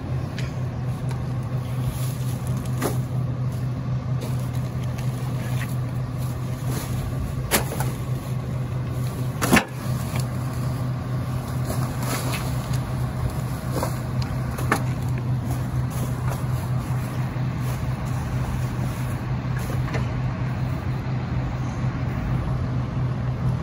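Rear-loader garbage truck engine running with a steady low hum, with a few scattered thumps and rustles as trash bags land in the hopper, the loudest about ten seconds in.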